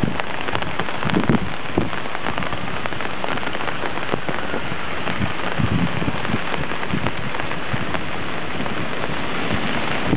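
Heavy rain in a thunderstorm, a dense steady patter of drops hitting surfaces, with a few brief low rumbles about a second or two in and around six seconds in.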